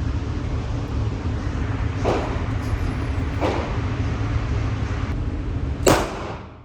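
Gunshots at a shooting range: two duller shots about two and three and a half seconds in, then one loud, sharp shot near the end, over a steady low rumble.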